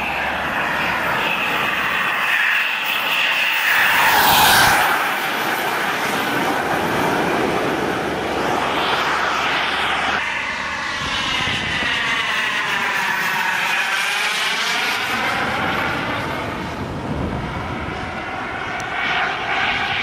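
Small KingTech K80 model jet turbine in an RC Rafale running at high power through takeoff and climb-out. Its rushing whine swells to its loudest about four seconds in as the model passes, then sweeps and swirls in tone as it flies by.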